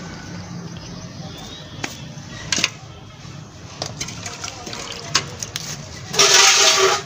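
Light knocks and scrapes of hands working potting soil around plants in plastic tubs, a few short clicks spread through. Near the end comes a louder rushing noise lasting under a second.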